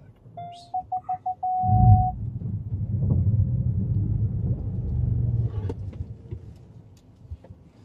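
The Kia Telluride's 3.8-litre V6 pulling hard under load as the SUV powers up a steep rutted dirt climb, a low rumble that builds about two seconds in and eases off near the end. Just before it, the car's parking-sensor warning beeps faster and faster and then holds a steady tone as the nose nears the bank.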